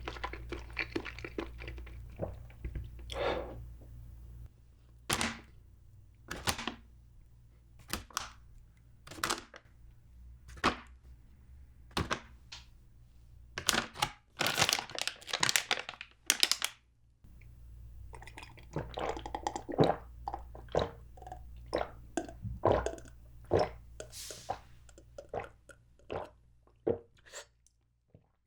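Close-miked eating sounds of grape jelly: wet chewing and mouth clicks coming in many short, irregular bursts.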